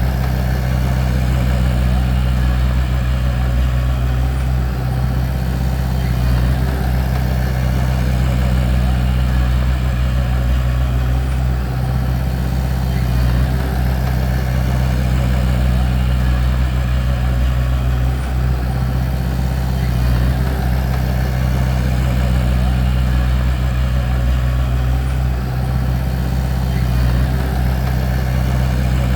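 Bulldozer's diesel engine running steadily, a deep low drone.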